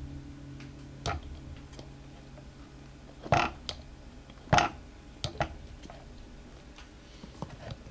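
Metal tire spoons knocking and clicking against the scooter wheel's rim as they pry at a tire bead stuck tight on the rim. The knocks come one at a time, with two louder ones near the middle.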